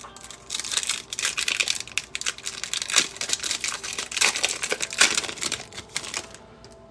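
Trading-card pack wrapper crinkling and crackling in the hands as it is handled and opened, stopping shortly before the end.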